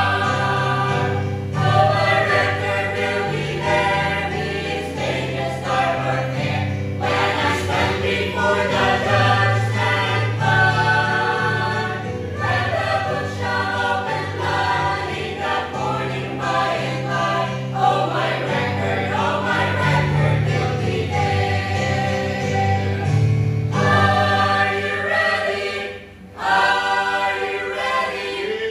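Mixed choir of men and women singing a gospel hymn in parts, with a short break between phrases near the end.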